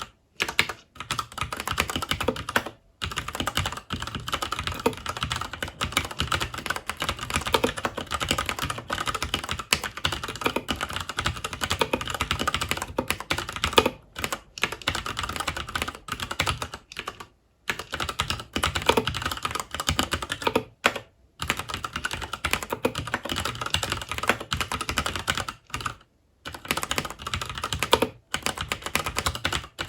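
Continuous fast typing on a FILCO Majestouch 2 HAKUA tenkeyless mechanical keyboard with Cherry MX Brown switches, a dense run of key clicks and bottoming-out clacks broken by a few brief pauses.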